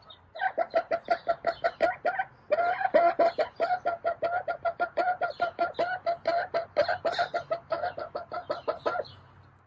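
A hen clucking rapidly and insistently, about five clucks a second for some eight seconds, with a short break about two seconds in. The hen is agitated over a nesting box another hen is occupying.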